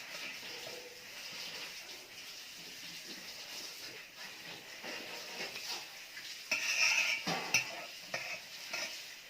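Close-miked mukbang eating sounds: wet food being mixed and chewed, with a louder run of sharp clicks about two-thirds of the way through.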